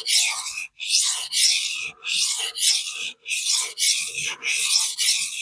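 Steel knife edge of AEB-L stainless being stroked back and forth across a coarse 400-grit vitrified diamond sharpening stone. It makes a harsh, hissy grinding in quick even strokes, about two a second. The stone is cutting steel fast to raise a burr.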